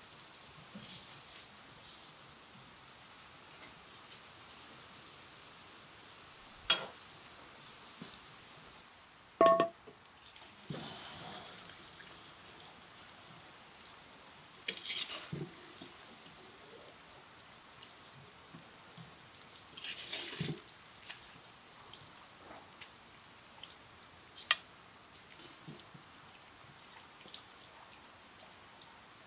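A metal ladle clinking and scraping against a cast-iron kazan and a ceramic platter as fried meat and potatoes are scooped out, a few sharp clinks with one loud ringing one about nine seconds in, over a steady faint hiss.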